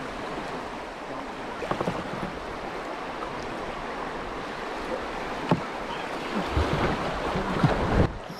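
River water rushing over rocks in a riffle around a drifting kayak, heard as a steady wash, with a few light knocks and a low rumble of wind on the microphone near the end.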